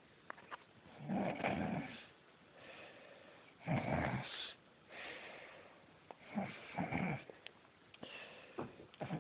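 A person snoring loudly: four rough, rattling snores about two and a half seconds apart, with quieter breaths between them.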